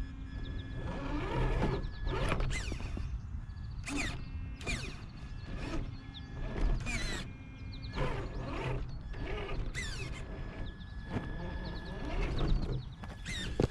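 Traxxas TRX-4 RC crawler's electric motor and geared drivetrain whining and creaking in repeated short bursts as the throttle is worked, over a steady low rumble.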